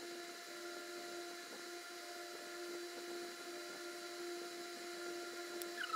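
Steady hum, one low tone with a few higher overtones over faint room hiss, unchanging throughout.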